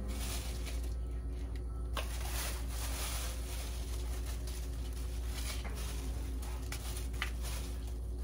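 Quiet kitchen work over a steady low hum, with a few faint clicks and knocks from handling utensils and pots.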